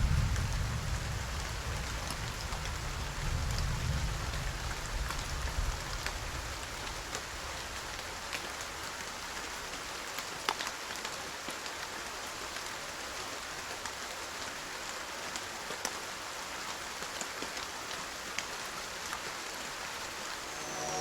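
Steady rain with scattered drops ticking sharply, and a low rumble dying away over the first few seconds.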